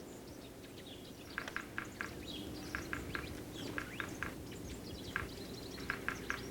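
Wild birds calling: groups of three or four short, clipped notes recurring every second or so, with thinner high chirps between them.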